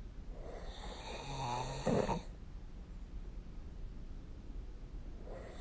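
A sleeping person snoring: one drawn-out snore on an in-breath begins about half a second in, rises to a louder, sharper rasp and stops abruptly about two seconds in.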